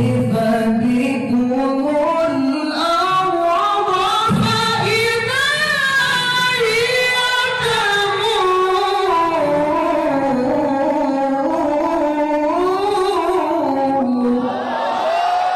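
Male Quran reciter's voice drawing out one long, unaccompanied melismatic phrase in a high register. The pitch climbs in ornamented turns to a peak about five to six seconds in, then winds down, and a new held note begins near the end.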